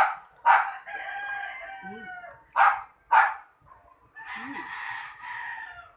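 A rooster crowing twice, each crow long and drawn out, with a few short, loud sounds around and between the crows.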